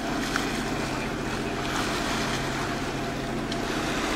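Water rushing and splashing along a sailing yacht's hull as the bow pushes through the sea, with wind on the microphone, over a steady low hum.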